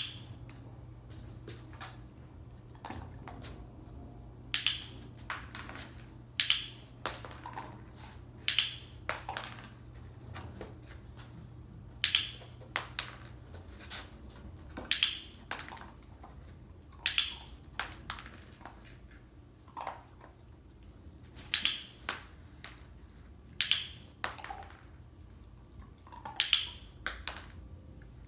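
A dog-training clicker clicking sharply about every two seconds, about ten times, marking the behaviours being shaped. Softer taps and rustles come between the clicks.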